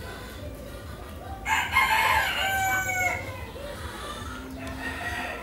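A rooster crowing once, for about a second and a half, starting about a second and a half in.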